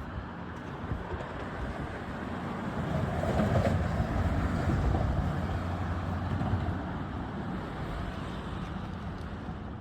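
An engine running with a steady low hum, growing louder about three seconds in and easing off after about five seconds.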